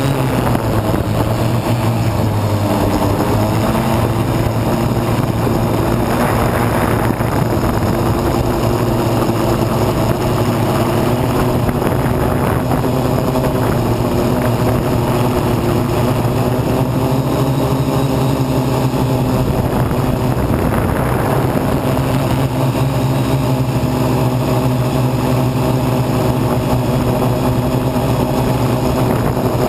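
MikroKopter multirotor's electric motors spinning EPP1245 propellers in steady flight: a loud, even hum of several pitches that shift only slightly, heard from a camera mounted on the copter's frame.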